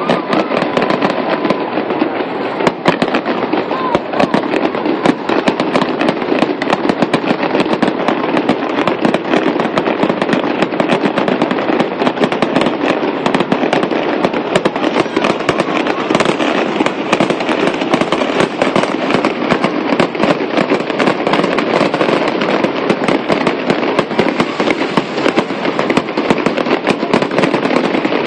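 Fireworks display: a continuous, rapid crackling and popping of many bursts at once, with no let-up.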